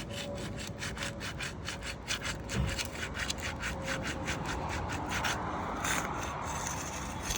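Sealed shingle tabs being pried loose, a tool scraping back and forth under them in rapid rasping strokes, about five or six a second. A little past halfway the strokes run together into a steadier scrape and tear as the seal strip gives.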